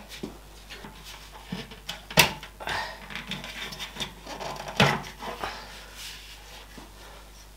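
A few sharp clicks and knocks, the clearest about two seconds in and again near five seconds, with soft rubbing and handling in between, as the panels of a Corsair 4000D PC case are handled and taken off.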